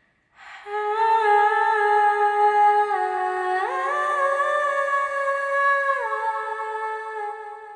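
A high voice humming long steady notes: one held note, a step up to a higher note about three and a half seconds in, then back down about six seconds in, fading out near the end.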